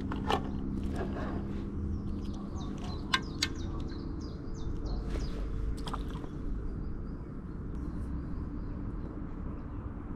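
Birds chirping over a steady low outdoor rumble, with a few sharp clicks near the start and about three seconds in.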